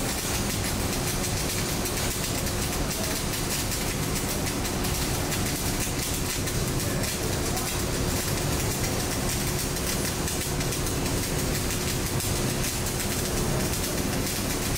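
MIG welding arc crackling and sizzling without a break as the weld is run, with a steady low hum underneath.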